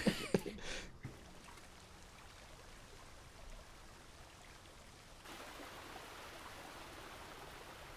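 Faint, steady rush of a waterfall in an animated show's soundtrack, growing louder about five seconds in.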